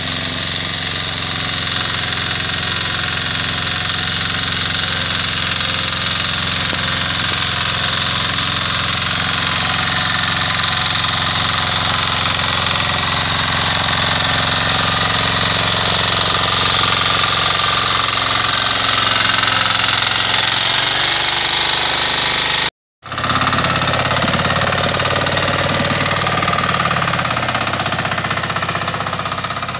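Shrachi mini power tiller's engine running steadily as it pulls a trolley stacked with firewood. The sound cuts out for a split second about three-quarters of the way through, then resumes.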